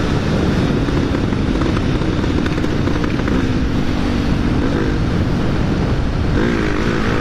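Honda XR250 Tornado's single-cylinder engine with a Belparts aftermarket exhaust running at road speed, under heavy wind rush on the helmet microphone. The engine pitch rises briefly a couple of times in the second half.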